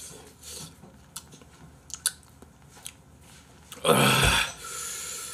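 A man chewing noodles with small, faint mouth clicks, then about four seconds in a loud, sharp blow of breath followed by a softer hissing breath, the huffing of a mouth burning from very spicy food.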